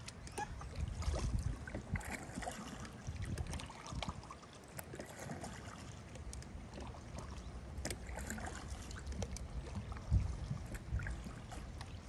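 Kayak paddle strokes in the water: irregular splashes and drips with short knocks, on an inflatable Intex Excursion Pro kayak.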